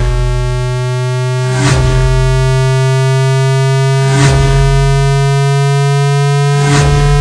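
Electronic hearing-test tone: a steady, buzzy synthesized tone with many overtones, slowly rising in pitch, broken by three short bursts of hiss about two and a half seconds apart.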